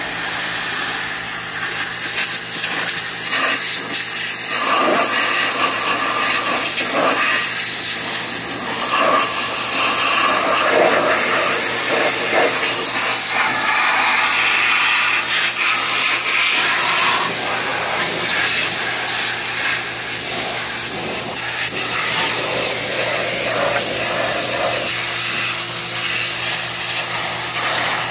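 Pressure washer jet hissing and spattering against a dirty VW Vanagon waterboxer engine case and flywheel, the splash changing as the jet moves over the metal, with the washer's steady hum underneath.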